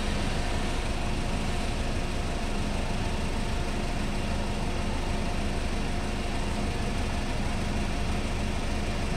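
Parked light cab-over truck's engine idling steadily, a constant low hum that does not change.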